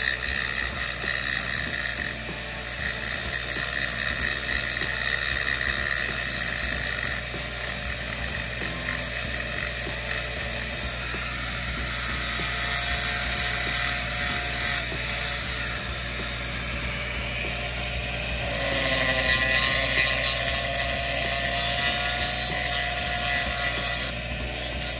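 Gas-shielded flux-cored arc welding on steel pipe: a steady crackling, sputtering arc whose level shifts every few seconds.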